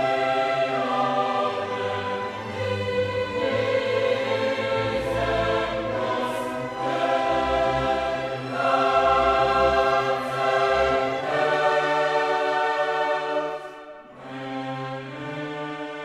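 Background music: a choir singing slow, held chords with orchestral accompaniment. The music drops in level about fourteen seconds in.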